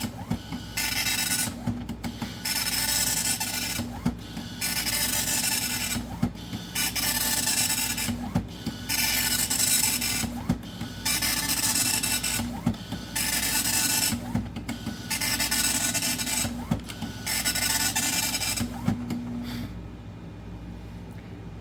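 Radio Shack DMP-110 dot-matrix printer printing a document in draft quality: repeated buzzing passes of the print head, each about a second and a half long, with short pauses between lines. It grows quieter near the end.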